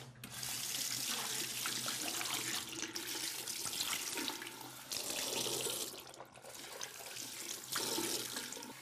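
Water running from a tap into a sink, the splashing shifting and dipping briefly a few times.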